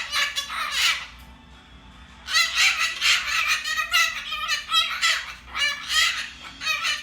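Rapid, high-pitched animal calls in quick runs, with a short pause about a second in.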